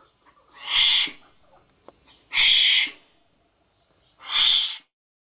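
Wombat hissing: three harsh, breathy hisses about a second and a half apart.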